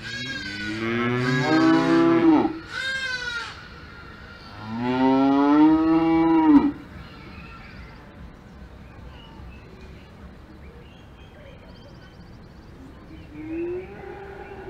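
Cows mooing: two long, loud moos in the first seven seconds with a shorter, higher call between them, then a faint moo near the end.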